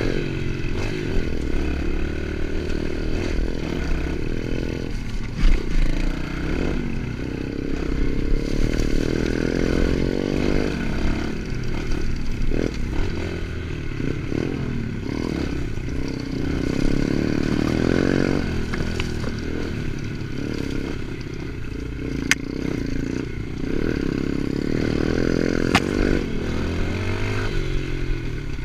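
Pit bike's small single-cylinder engine running under a rider, the revs rising and falling over and over, with the rattle of the bike over rough ground. Two sharp clicks come in the last third.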